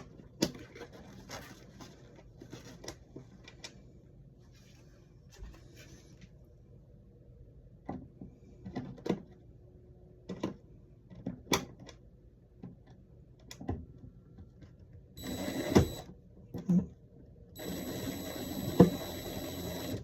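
Scattered small clicks and taps of a screwdriver and screws against a wall switch, then two spells of steady scraping whir as a screw is driven in, a short one about fifteen seconds in and a longer one near the end.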